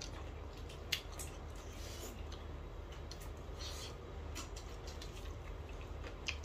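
Chewing, lip smacks and wet clicks of someone eating rice with his fingers, with sharper clicks about a second in and near the end, over a steady low hum.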